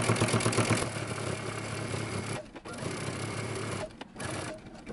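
Electric sewing machine running, edge-stitching a pocket onto a dress: motor hum with rapid needle strokes. It stops briefly about halfway through and again near the end.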